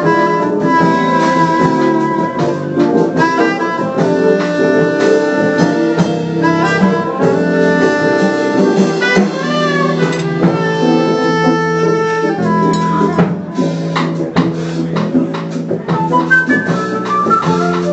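Instrumental jazz with a saxophone playing the melody over drums.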